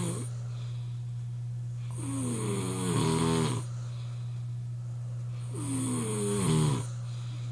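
Person snoring hard: two long snores, each about a second and a half, falling in pitch and loudest toward the end, with a steady low hum underneath.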